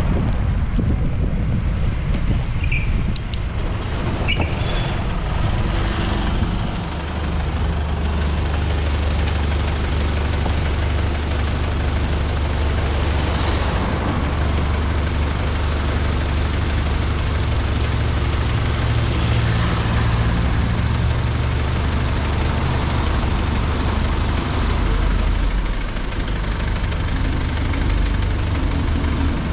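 City street traffic heard from a bicycle-mounted camera, with wind and road noise. A heavy vehicle's engine runs close by as a low steady hum from about a quarter of the way in until near the end.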